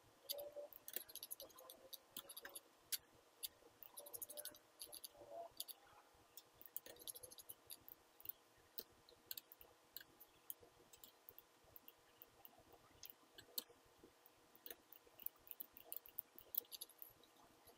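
Faint computer mouse clicks, irregular and sometimes in quick runs of several, as the mouse works a CAD drawing.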